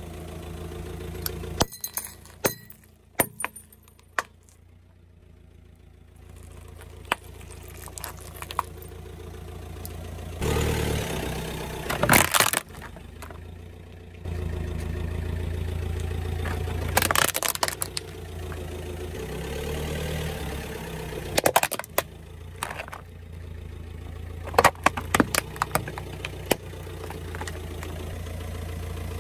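A car's tyre rolls slowly over household objects on asphalt: white saucers, a brown plastic basket and a blue plastic item. Each one breaks with a cluster of sharp cracks and snaps. Under the crushes runs the steady low hum of the idling car engine, its level jumping at several cuts.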